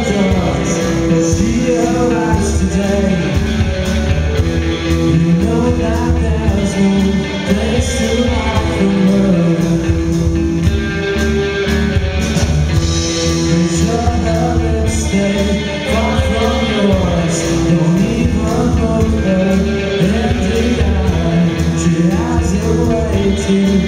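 Live rock band playing: electric guitars, bass and a drum kit with cymbals, with a male lead singer at the microphone.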